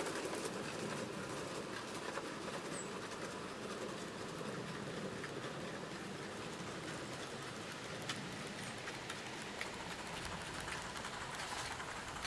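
O gauge live steam model train running along the track: a steady rolling rumble of wheels with scattered light clicks.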